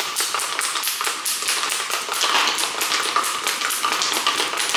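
Protein shaker bottle being shaken hard, its agitator ball knocking and the liquid sloshing inside in a rapid, even rhythm, mixing powder into water.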